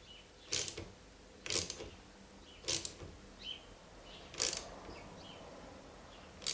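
Hand ratchet wrench tightening a spoiler fixing screw with slow, gentle strokes. Each stroke gives a short burst of clicks, five in all, about one to two seconds apart.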